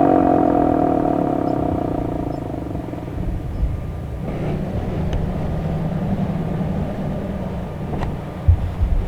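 Federal Signal Model 2 electromechanical fire siren winding down at the end of its test, its wail falling in pitch and fading out over the first two or three seconds. A low steady rumble follows, with a few knocks near the end.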